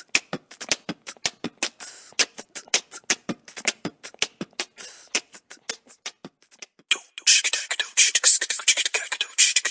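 Human beatboxing: a quick run of sharp mouth clicks and percussive hits, several a second. About seven seconds in it turns into a denser, louder stream of hissing hi-hat and snare-like sounds.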